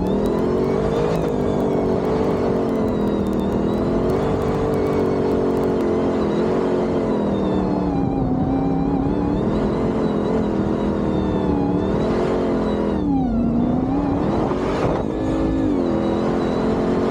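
Supercharged 6.2-litre Hellcat Hemi V8 in a Jeep running, its pitch rising and falling as the engine speed changes, with a drop about two-thirds of the way through and a rise soon after.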